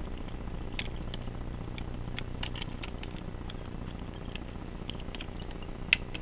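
Light, irregular plastic clicks and taps of a Rubik's Magic puzzle's hinged tiles being folded and flipped by hand, with one sharper click near the end.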